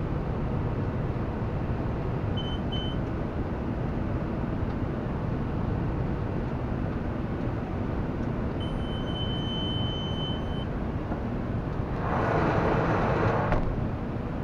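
John Deere tractor pulling a John Deere round baler through hay windrows, heard from inside the cab: a steady engine and machinery drone. A cab monitor beeps twice briefly, then gives one beep of about two seconds, and near the end a hiss lasts about a second and a half.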